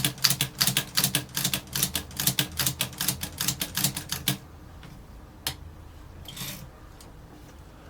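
1943 Olympia Plana travel typewriter being typed on, a quick run of key strikes at about five a second that stops about four and a half seconds in. A few single clicks of the mechanism follow.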